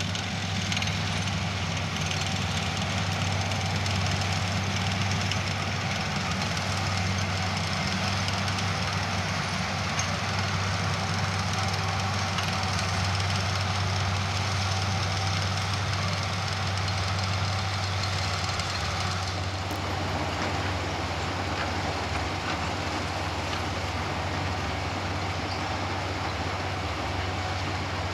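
Diesel machinery of a Dewulf potato harvester and John Deere tractor running steadily at work, a constant low engine hum under a wide rushing noise, which changes character about two thirds of the way in.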